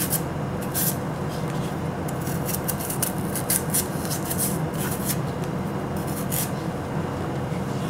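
Small knife scraping the skin off a piece of fresh ginger root in short, irregular strokes, over a steady low hum.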